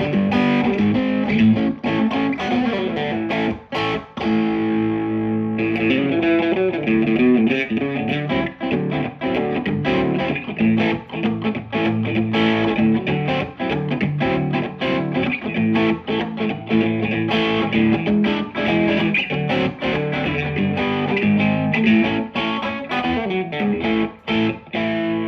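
Electric guitar, a Fender Stratocaster on its bridge and middle pickups wired out of phase, played through a Maxon Vintage Overdrive Pro as a run of picked notes and strummed chords. The out-of-phase setting gives the thin, hollow Strat tone. Playing breaks briefly about four seconds in and again near the end.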